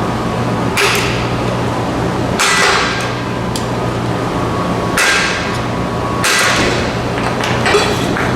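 Hammer blows on the metal of a driveshaft carrier bearing: about five strikes, a second or more apart, each ringing briefly, as the old bearing is driven off the shaft.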